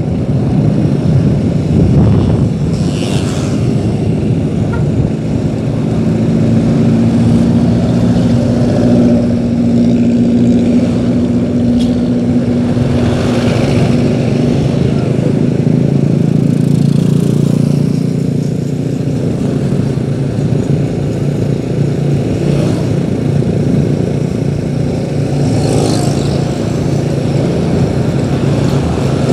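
Engine of a moving road vehicle running steadily while driving, its low hum shifting slightly in pitch, with three brief surges of hiss.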